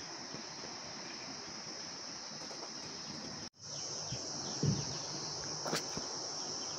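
Steady high-pitched drone of insects in hillside vegetation, cut off for a moment about halfway through, with a faint knock and a click after it.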